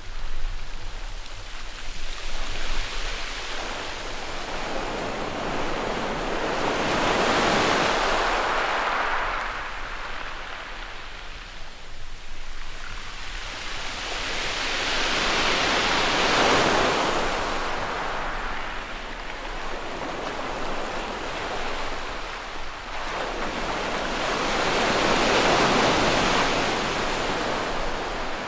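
Small waves breaking on a shingle beach and washing back, a hissing surge of surf that swells and fades three times, about nine seconds apart.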